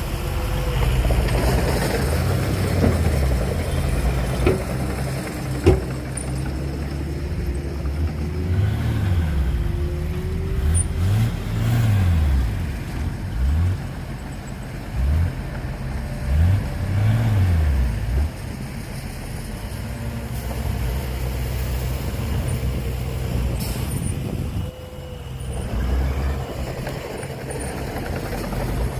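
Heavy diesel engine of earthmoving equipment running, revving up and back down several times in the middle. A couple of sharp knocks come about five seconds in.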